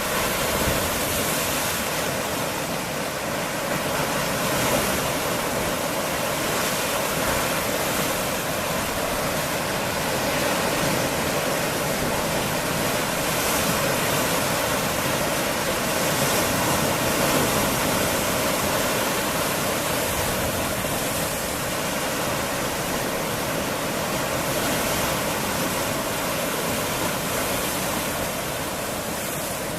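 Mediterranean surf washing against a rocky shore: a steady rush of sea water over and through the stone, swelling a little now and then.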